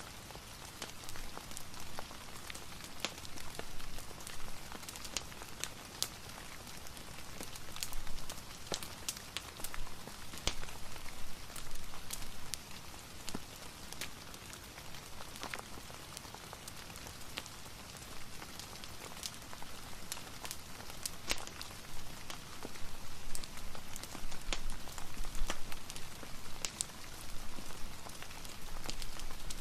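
Steady rain with many scattered sharp crackles and pops from a wood fire.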